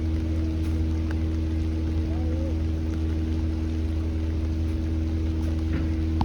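Steady low mechanical hum of a large ship's machinery, a constant drone holding the same few tones throughout.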